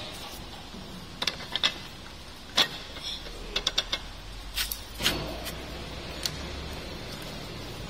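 Sharp metal clinks and knocks of a steel taper-shank drill bit being handled and seated into a drill press spindle, a dozen or so scattered strikes.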